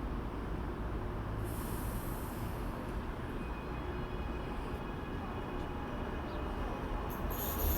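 Train running through a station with a steady low rumble and brief high-pitched squeals, about a second and a half in and again near the end.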